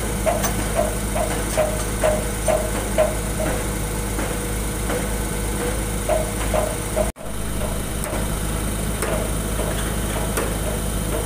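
Heavy concrete-paving machine's diesel engine running steadily as the machine travels, with a short squeak repeating about three or four times a second for the first few seconds and again briefly later. The sound cuts out for an instant about seven seconds in.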